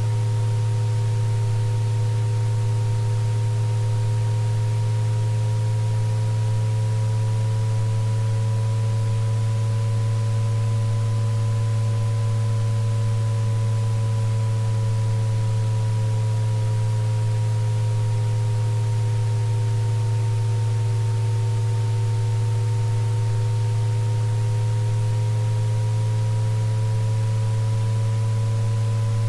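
Synthesized sound-therapy drone of pure electronic tones for tinnitus relief. A loud, steady low tone sits under several fainter higher tones that slowly drift up and down in pitch over many seconds.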